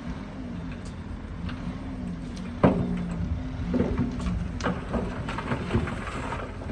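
Heavy diesel earthmoving machine running, its engine note wavering slightly. A sharp knock comes about two and a half seconds in, followed by several lighter knocks.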